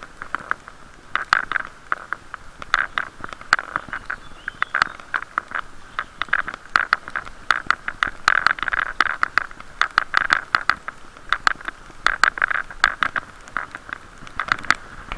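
Irregular sharp clicks and taps, muffled by a waterproof camera case, over a dull hiss of ride noise from a bicycle in drizzle.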